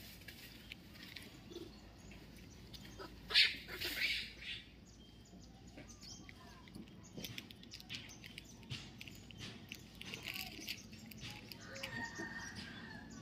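Outdoor ambience of birds chirping, with a rooster crowing near the end and a brief louder burst about three and a half seconds in.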